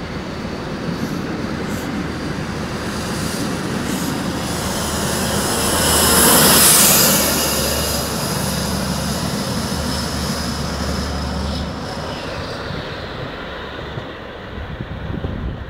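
Intercity 125 accelerating away from the platform: coaches rolling past, then the Class 43 power car's Paxman VP185 diesel passes with a steady low drone and a high whine, loudest about six to seven seconds in. The sound fades as the train draws away.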